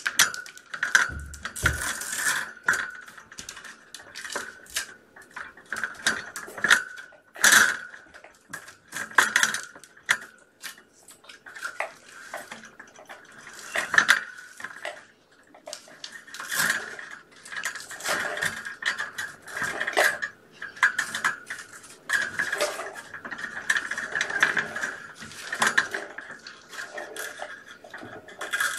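Irregular clicks, taps and scrapes of something handling and brushing against the camera, close to its microphone.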